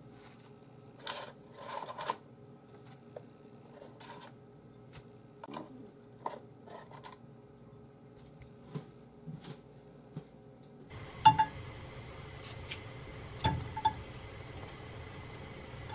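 Light clicks, taps and paper rustles as wooden chopsticks move pieces of fried meat onto a plate lined with kitchen paper. About two-thirds through, a steady hiss comes in, and a few sharper knocks sound as the pieces are dropped into a non-stick saucepan.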